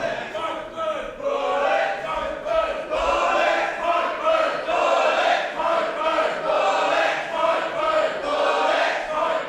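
Wrestling crowd chanting in unison, many voices rising and falling in a steady rhythm.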